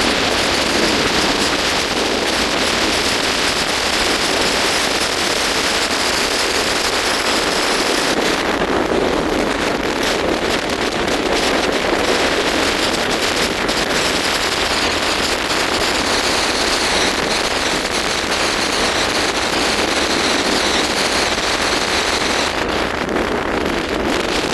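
Steady road and wind noise of a car driving on a paved highway, an even rushing with no breaks.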